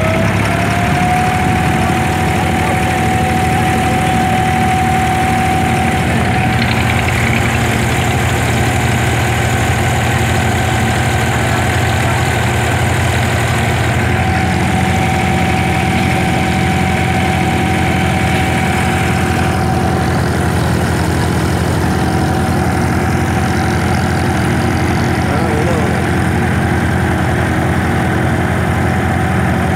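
A wooden abra water taxi's inboard diesel engine running steadily underway, heard from on board, with a constant high tone over its low drone.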